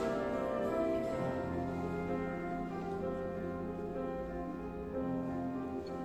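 Orchestra of Russian folk instruments with piano playing an instrumental passage of held chords.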